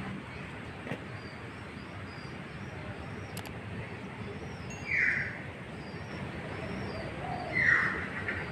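Birds calling: small high chirps twitter on and off throughout, and two loud squawks that fall in pitch come about five seconds in and again near the end.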